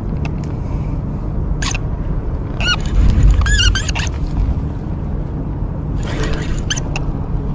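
Steady low rumble of wind on the microphone on an open boat deck at sea, with a few short, high squeaky chirps about three and a half seconds in and again near the end.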